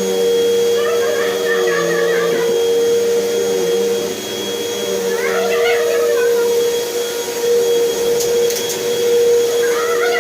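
Vacuum cleaner running steadily with a constant hum. Three times, a wordless voice-like sound rises over it and fades.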